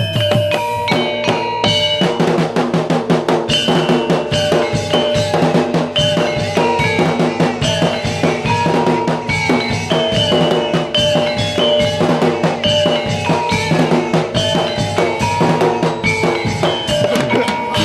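Instrumental percussion music: fast, dense drumming with ringing pitched metal notes over it, in the style of Javanese folk-dance accompaniment.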